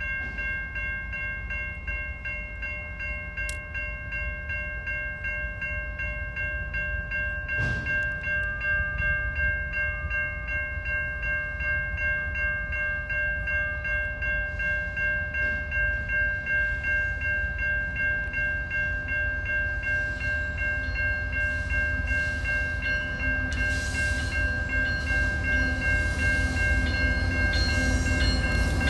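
Railroad grade-crossing warning bell ringing steadily in rapid regular strokes as a train approaches. The train's rumble grows louder toward the end.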